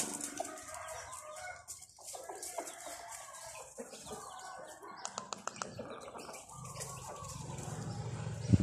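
Chickens clucking, with a quick run of sharp clicks about five seconds in and a loud thump near the end.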